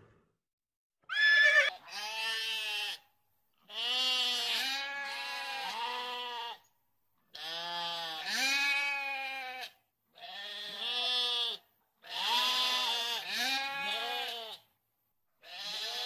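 Sheep bleating: a run of about six wavering, quavering bleats, each one to three seconds long, with short silent pauses between. Several voices at different pitches overlap in some calls, and a short, loud, high call comes first.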